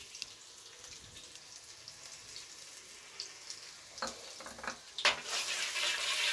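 Chopped onions frying in hot mustard oil in a wok, with a quiet steady sizzle. About five seconds in a spatula starts stirring, scraping against the pan, and the sizzle gets louder.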